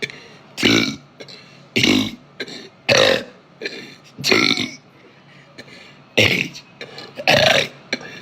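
A woman burping over and over: about six short, loud burps roughly a second apart, with a short pause about five seconds in.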